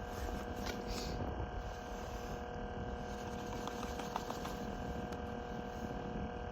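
Wind rumbling on the microphone over a steady faint hum, with a few small clicks about a second in and again around four seconds.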